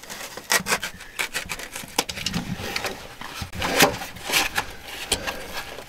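Foam pool-noodle insulation being worked by hand onto plastic water lines: irregular rubbing, scraping and small clicks and knocks as the foam is pushed and squeezed along the tubing.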